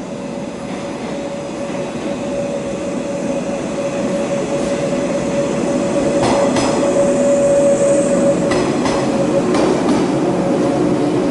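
JR 485 series electric train pulling into a station platform with a steady whine, getting louder as the cars roll past. A few wheel clacks over rail joints come in the second half.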